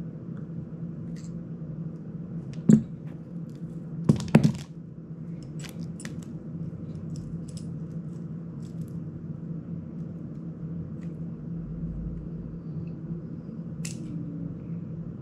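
Small clicks and taps of tiny drone parts and a screwdriver being handled, over a steady low hum; a sharp knock a little under three seconds in and a short cluster of louder clicks at about four seconds are the loudest.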